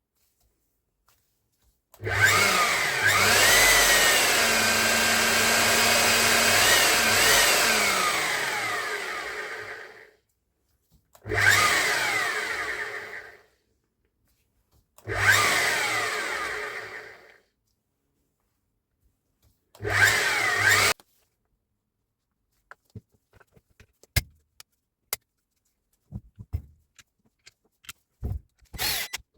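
Hilti TE60 rotary hammer run in four bursts, one long run of about eight seconds and three short ones, each winding down in pitch as the trigger is released: a test run after repair. Scattered light clicks and knocks follow near the end.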